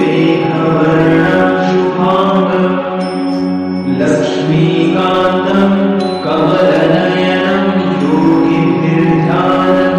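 Background devotional music: a Hindu mantra chanted by a singing voice in long, repeating phrases.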